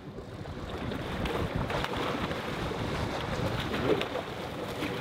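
Wind buffeting the microphone over the rush of sea water around a sailing catamaran under way, a steady noise that grows louder over the first second or so.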